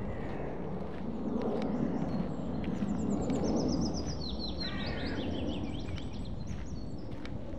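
A songbird singing a quick run of notes that falls in pitch, about three seconds in and lasting a couple of seconds, with shorter bird calls around it. Under it a steady low rumble and faint regular steps on a dirt forest path.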